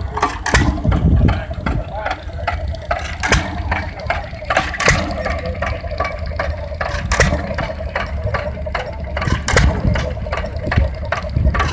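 Early-1900s engines running, with irregular knocks and a steady low rumble, and people talking in the background.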